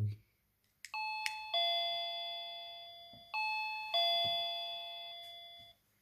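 Plug-in wireless doorbell chime playing an electronic two-note ding-dong twice, after a short click; each lower note rings out and fades slowly. The chime is set off from the transmitter board by a newly wired push switch, showing the fix works.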